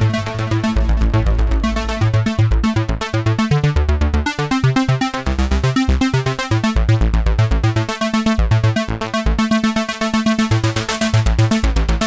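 Cherry Audio Elka-X software synthesizer, an emulation of the ELKA Synthex analog synth, playing its 'Chorus AR' arpeggio preset. It plays a fast, rhythmic stream of short repeated synth notes over pulsing bass notes.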